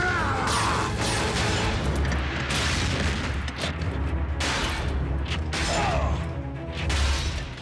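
Cartoon action soundtrack: music under repeated booms and mechanical sound effects, with a couple of short gliding whooshes.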